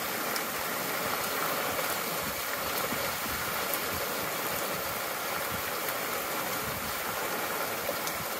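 Small boat's motor running steadily under way, heard as a constant even drone with no change in pitch.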